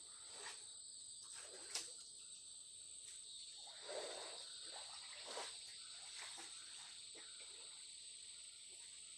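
Steady shrill chorus of crickets or similar insects, with a few faint soft rustles and one sharp click a little under two seconds in.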